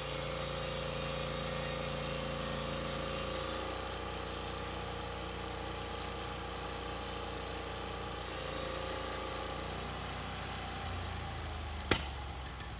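Gas engine of a Norwood HD36 bandsaw mill running steadily, with one sharp knock near the end.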